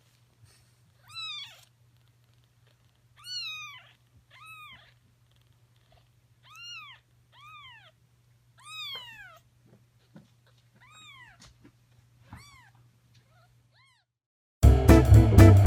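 A newborn kitten mewing repeatedly: about eight short, high, thin calls, each rising and then falling in pitch, a second or two apart. Loud guitar music cuts in near the end.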